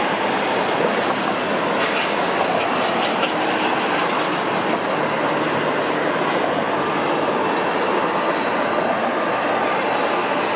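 Steady city noise: an even rumble and hiss with no distinct events.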